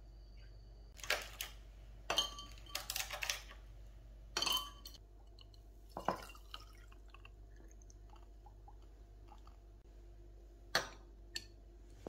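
Quiet clinks and knocks of a drinking glass, ice cubes and a bowl on a stone countertop while an iced matcha latte is made, with a little liquid pouring and dripping, over a faint steady hum. The clicks come singly and in a short cluster a couple of seconds in.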